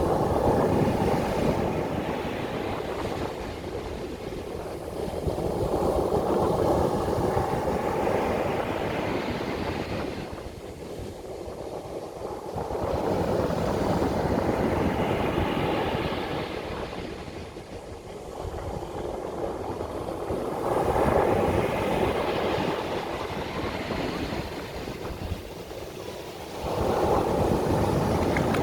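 Ocean surf breaking on a beach: the wash of each wave swells up and falls back about every seven seconds, five times over.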